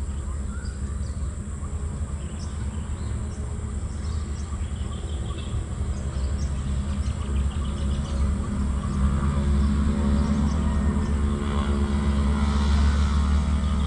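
An engine hum that grows louder from about halfway through, with birds chirping.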